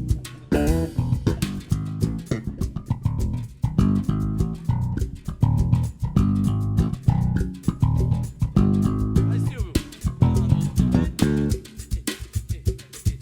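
Electric bass played as a lead instrument, fast plucked and slapped melodic lines, with percussion strikes alongside.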